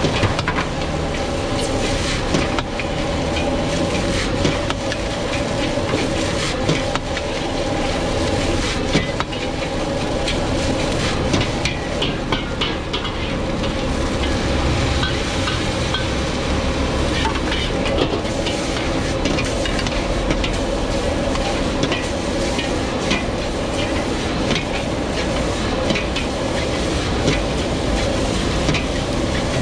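Metal spatula and ladle scraping and clinking against woks as fried rice is stir-fried over high gas flames. Frequent sharp clinks and knocks ride over a steady sizzle and rush from the fire.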